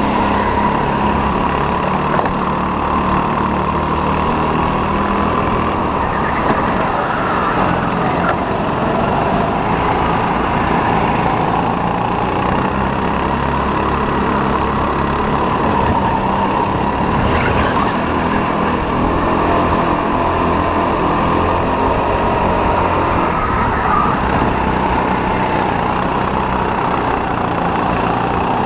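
Sodi RT8 rental kart's small four-stroke engine running hard at racing speed, heard onboard, its note wavering slightly through the corners with another kart's engine close ahead. A single short knock about two thirds of the way through.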